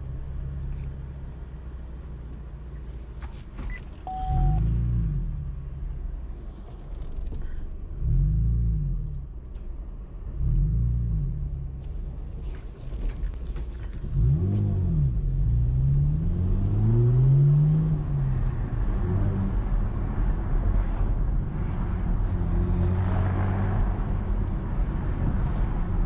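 Chevrolet Camaro engine and exhaust at low speed, its note rising and falling in four short revs, then climbing in pitch through a longer pull about halfway through before settling into a steady cruising drone.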